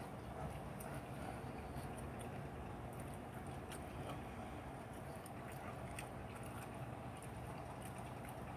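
Faint, steady low hum and hiss of room noise, with faint clicks scattered through it.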